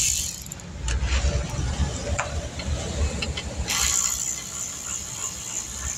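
A few light metallic clicks from hand tools working on fasteners under a car's hood, over a steady choppy low rumble. A hiss comes in a little after halfway and carries on.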